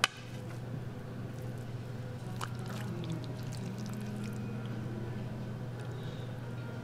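Buffet serving utensils at a steel steam-table pan: a sharp clink right at the start, then a steel ladle scooping and pouring thick black bean (jjajang) sauce, with a few light clinks about two and a half seconds in, over a steady low hum.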